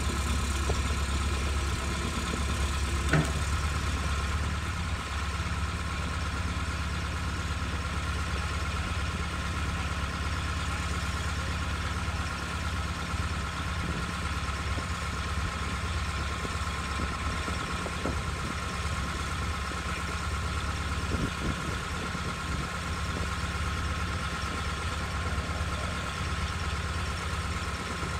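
Engine of a Bantam truck-mounted crane idling steadily, with one sharp knock about three seconds in.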